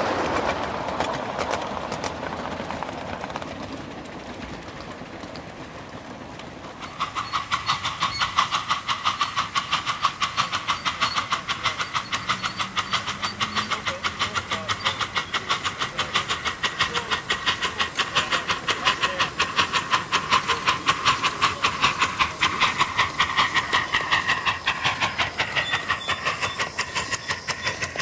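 A 1½-inch-scale live steam locomotive chuffing in a fast, even rhythm of about three beats a second, the chuffing setting in about seven seconds in and staying loud as the engine comes close. Before that, a rushing hiss fades away, and near the end a tone slides down in pitch as it passes.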